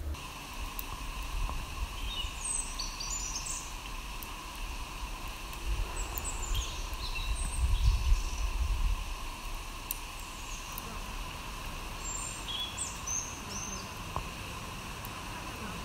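Outdoor ambience: birds chirping now and then over a steady background hiss. A low rumble swells and fades around the middle.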